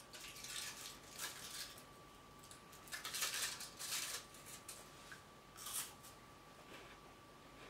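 Plastic wrapper of a Milka choco wafer crinkling and tearing in several short bursts as it is opened, then a crisp bite into the wafer near the end.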